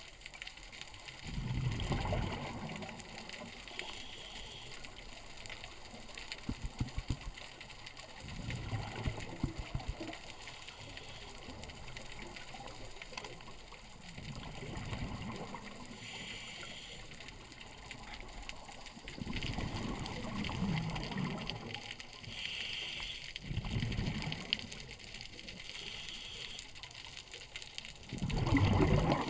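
Scuba breathing through a regulator heard underwater: about six bursts of exhaled bubbles a few seconds apart, with a short, fainter hiss from the regulator on the inhales in between.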